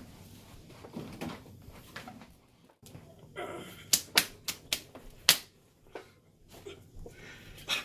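Barbell and weight plates clanking during a light lift: a run of sharp metallic clicks about four to five seconds in, and one more near the end.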